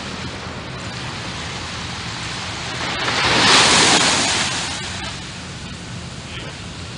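Small waves washing on the beach, one swelling up about three seconds in and fading away by about five seconds, over a steady low hum.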